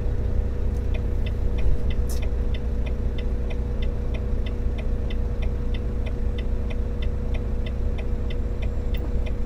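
Turn-signal indicator of a Volvo VNL860 truck ticking evenly in the cab, about three ticks a second, over the steady hum and rumble of the running engine.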